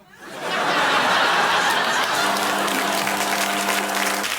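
Studio audience laughing, the laughter swelling in quickly and then holding steady. About halfway through, a steady low tone joins in under the laughter and stops just before the end.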